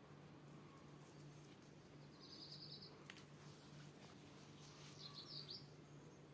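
Faint bird calls: two short, high chirping phrases, about two seconds in and again near the end, over a steady low hum.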